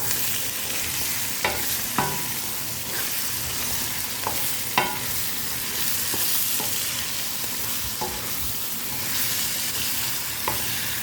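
Food frying in a pan with a steady sizzle, while a spoon stirs it and knocks sharply against the pan several times.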